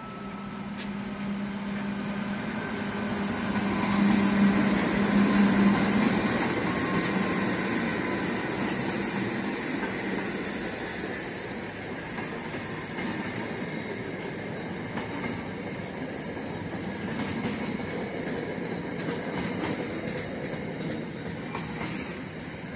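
Diesel-hauled container freight train passing close by. The locomotive's engine hum is loudest about four to six seconds in, followed by the steady rumble of the container wagons rolling past, with scattered clicks of wheels over the rails.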